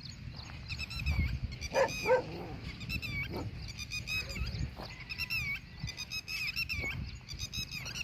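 Red-wattled lapwings giving repeated sharp, shrill alarm calls, the birds mobbing dogs near their eggs. Two short dog barks about two seconds in are the loudest sounds.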